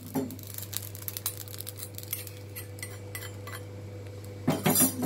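Steel spoon scraping and clinking in an iron kadai as dry-roasted carom seeds (ajwain) are stirred and tipped out, with small crackling clicks from the seeds, the sign that they are roasted. A louder metal clatter comes near the end.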